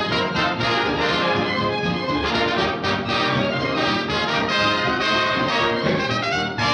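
Orchestral cartoon title music, led by trumpets and trombones, with many quickly changing notes.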